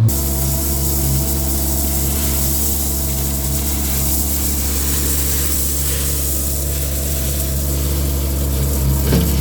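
Vermeer mini skid steer's engine running steadily under load, with a high hiss over the steady drone.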